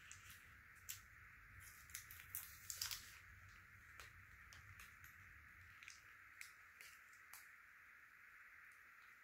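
Faint, scattered clicks and crinkles of small food packaging handled by hand: a wrapped snack picked out of a compartment tray and its wrapper peeled open. The clicks are most frequent in the first three seconds and thin out after, over a steady faint hiss.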